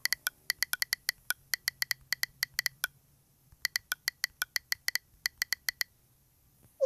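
Smartphone on-screen keyboard clicking with each key tap, a quick run of taps that pauses for about half a second around three seconds in and then resumes. Near the end a short blip sounds as the message is sent.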